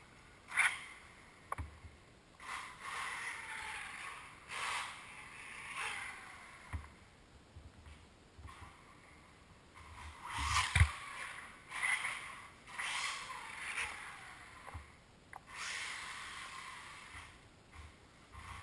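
Losi Mini 8ight radio-controlled buggy running: repeated swells of motor and tyre noise, each a second or two long as it accelerates and slows, with a few sharp knocks.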